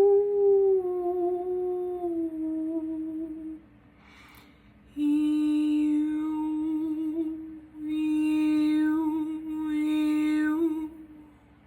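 A woman's voice sustaining long wordless sung tones. One long note slides gently downward, there is an audible breath, then two more long notes are held on a single low pitch while the vowel sound shifts.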